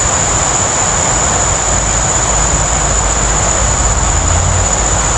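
Steady high-pitched insect drone over a constant rushing hiss, with a low rumble that grows about a second and a half in.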